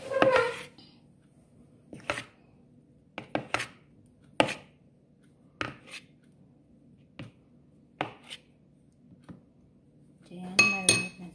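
Metal spoon tapping and scraping against a bowl while spooning marinade over raw chicken: single sharp ticks every second or so, then a louder ringing clatter of metal near the end.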